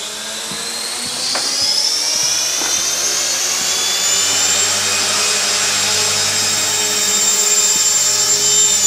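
Align T-Rex 450 electric RC helicopter spooling up: the brushless motor and rotor whine climbs in pitch over the first few seconds, then holds a steady high whine at flying speed.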